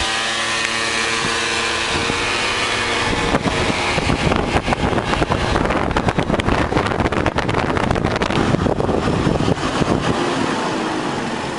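Small gasoline motor scooters running along a road. A steady engine note is clearest for the first few seconds, then wind buffeting the microphone mostly covers it.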